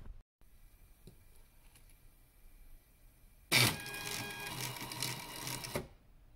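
Stepper motor turning a ring through a toothed-belt pulley: quiet for about three seconds, then the motor starts suddenly and runs with a whine of several steady tones, stopping about two seconds later.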